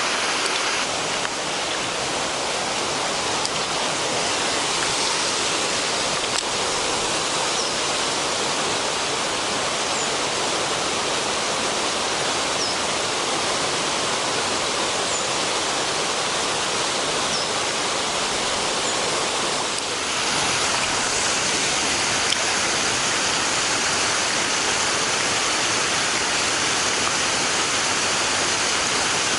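Steady rushing of a mountain stream's water, a continuous even hiss that shifts slightly in tone about twenty seconds in.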